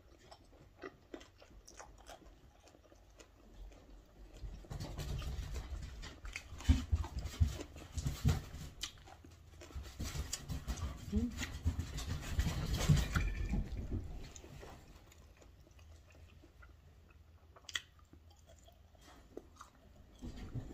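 A person chewing food with the mouth close to the microphone, with wet smacking and small clicks. It is faint at first, loudest and densest from about five to fourteen seconds in, then quiet again.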